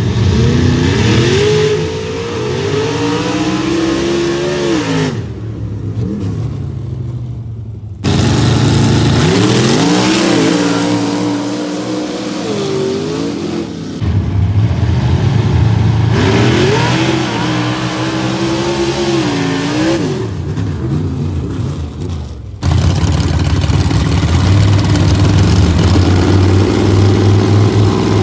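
Pickup truck engines revving hard and accelerating down a dirt drag strip, the pitch climbing and dropping through the gears, in several short runs that cut off abruptly. Near the end, a steady low rumble of truck engines running in the staging lanes.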